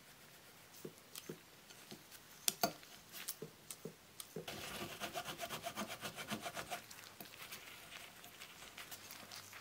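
A cloth rubbed over a die-cast metal toy car baseplate on a wooden board, with scattered light clicks and taps at first. About four and a half seconds in comes a quick run of rapid scrubbing strokes lasting a couple of seconds, then the rubbing eases off.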